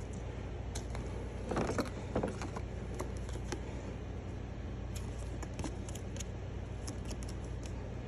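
Handling noise from unpacking compound-bow accessories: rustling and knocking about one and a half to two seconds in, then scattered small clicks and rattles of hard parts, over a steady low hum.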